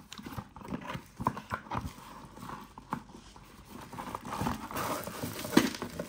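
Cardboard box and plastic packaging being opened and handled by hand: irregular knocks and taps mixed with rustling.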